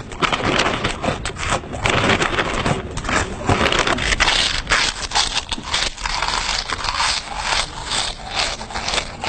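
Loud, exaggerated eating noises: a dense, continuous run of crackly crunching and chewing sounds.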